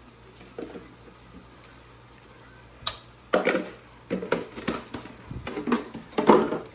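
Kitchen containers and utensils being handled: a sharp click, then a run of irregular knocks and rattles, starting about halfway through.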